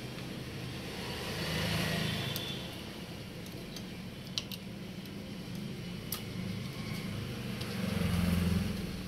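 A vehicle engine's low hum swells and fades twice, about two seconds in and again near the end, with a few light metallic clicks of an Allen key working on the motorcycle engine's cylinder bolts.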